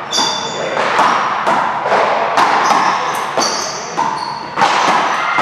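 A fast doubles rally: a ball struck and bouncing off hard surfaces about twice a second, each hit sharp with a short high ping and an echoing tail, as in a large indoor court.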